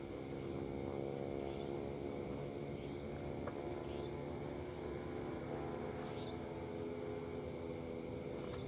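Night forest insects, crickets, trilling steadily in two high bands over a steady low hum, with a few faint short chirps scattered through.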